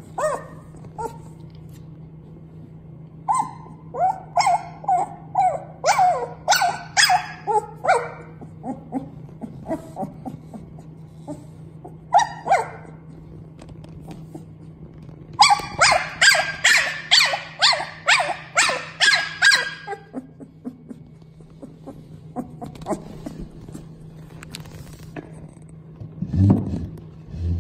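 A young white puppy yipping and crying in bouts of short high-pitched calls, about two a second, with pauses between the bouts. A brief low sound comes near the end, over a faint steady hum.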